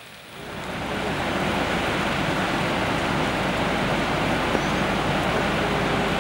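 Waterfall on a flooded river: a steady rush of falling and churning water that fades in over the first second and then holds even.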